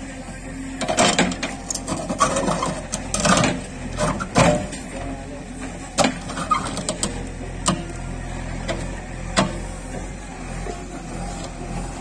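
JCB 3DX backhoe's four-cylinder diesel engine running steadily while the bucket works the soil, with a string of sharp knocks and clunks every second or two, the loudest about four to six seconds in.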